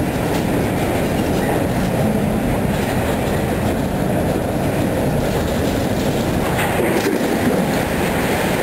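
Autorack freight cars of a passing train rolling by at close range: a steady rumble of steel wheels on rail, with a click from the wheels at the start and again about seven seconds in.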